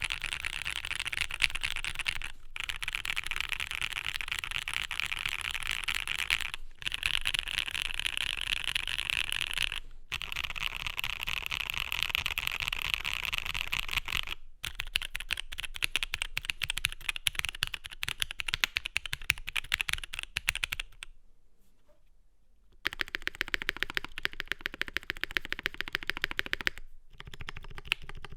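Fast, continuous typing on a KBDfans D84 v2 mechanical keyboard with lubed and filmed SP Star Purple linear switches, a polycarbonate plate and GMK keycaps: a dense run of keystroke clicks. The typing breaks off briefly several times and stops for about two seconds roughly three quarters of the way through.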